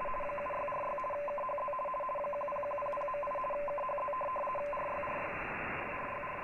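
Shortwave RTTY (radioteletype) signal on a software-defined radio receiver: two tones rapidly alternate as the data is keyed, over steady receiver hiss. Near five seconds in, the keying stops and a single steady tone holds.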